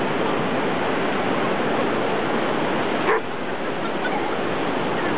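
A dog barks once, about three seconds in, over a steady wash of surf and wind noise.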